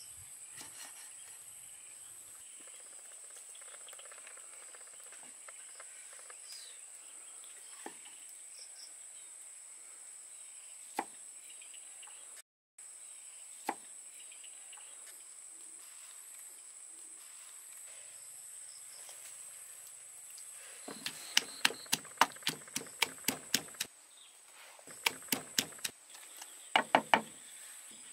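A steady high-pitched insect drone with a few faint knife clicks, then near the end two quick runs of sharp taps, about four a second, from a knife chopping on wood.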